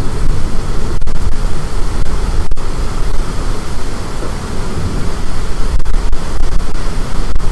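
Strong storm wind buffeting the microphone: loud, continuous rumbling wind noise, heaviest in the low end.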